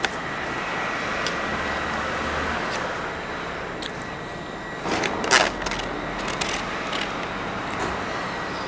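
A road vehicle passes, a swell of tyre and engine noise that rises and fades over the first few seconds. About five seconds in come a few short scrapes and clicks of a spoon against a plastic food tray.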